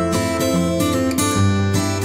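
Background music: a strummed acoustic guitar playing a bright, steady tune.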